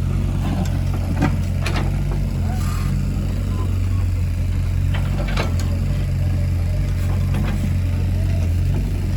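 Excavator's diesel engine running steadily at working speed, with a few sharp knocks about one, two and five and a half seconds in.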